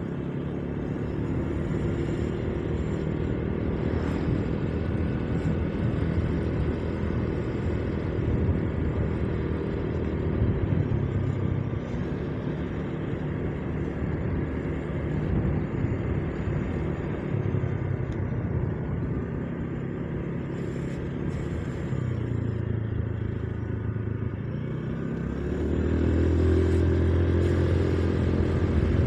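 Motorcycle engine running steadily while riding, heard from the bike itself with road and wind noise. Its note sags about three-quarters of the way through, then rises and grows louder near the end as the engine revs up.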